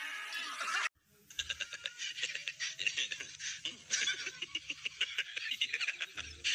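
A dog's high, wavering cry cuts off about a second in. Then a woman laughs hard in quick, breathy pulses.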